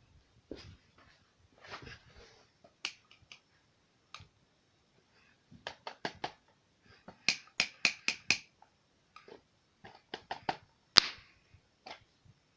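Irregular sharp clicks and taps: scattered single clicks, a quick run of about five in the middle, and one louder click near the end.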